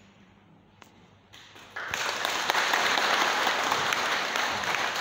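A hush, then audience applause breaks out about a second and a half in and swells to a full, steady clapping.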